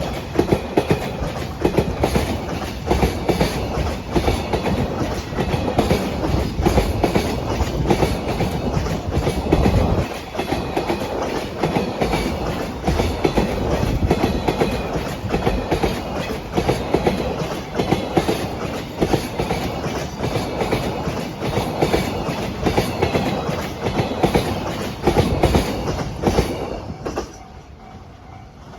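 A long freight train of Koki container wagons rolling past at speed, wheels clattering over the rail joints in a steady stream of clicks. The noise drops off sharply near the end as the last wagon goes by.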